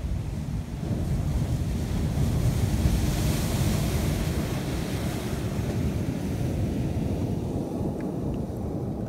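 Surf breaking and washing over a rocky shore, with strong wind buffeting the microphone. The wash swells loudest about three seconds in, then settles.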